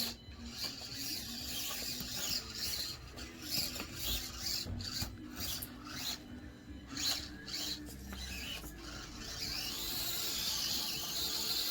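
Axial SCX24 Deadbolt micro crawler's small electric motor and gearbox whining in short, uneven surges as it is throttled on and off, with scraping and clicking from the tyres and chassis working over the obstacles.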